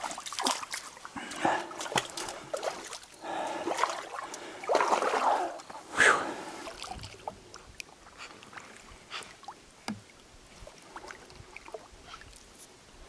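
Splashing and sloshing of shallow water at a muddy bank, mixed with scrapes and knocks, with a sharp knock about six seconds in. After that it drops to a quiet stretch with only faint scattered ticks.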